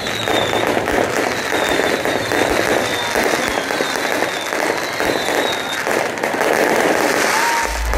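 Aerial fireworks display going off: a dense, continuous crackle of bursting shells and pops, with short high falling whistles repeating about once a second.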